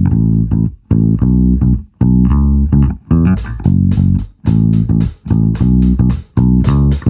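Background music: a bass-heavy plucked-string tune played in short, choppy phrases, with a crisp drum beat joining about three seconds in.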